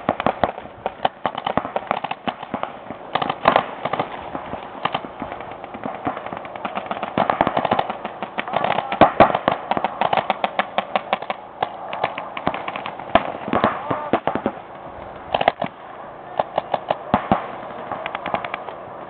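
Paintball markers firing in rapid strings of shots, several shots a second, starting and stopping again and again, with voices shouting over them.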